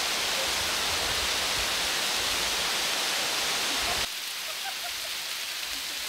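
Girlevik Waterfall's cascades rushing over rock: a steady, even noise of falling water. About four seconds in it drops abruptly to a softer rush.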